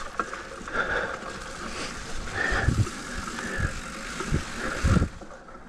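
Specialized Fuse hardtail mountain bike ridden over wet trail roots: steady tyre and trail noise, with the bike rattling and several low thumps from about halfway through as it hits the roots.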